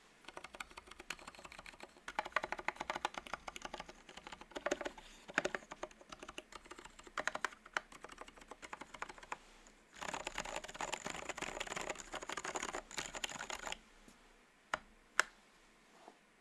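Typing on a Space65 CyberVoyager 65% mechanical keyboard with lubed Zilents V2 silent tactile switches, a carbon fibre plate and XDA keycaps: a steady run of keystrokes that becomes a dense, rapid flurry for a few seconds about ten seconds in, then a couple of separate keystrokes near the end.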